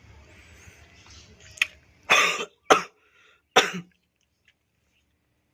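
A person coughing hard three times in quick succession, after a short catch in the throat. It is a productive cough, bringing up phlegm that is turning red with blood.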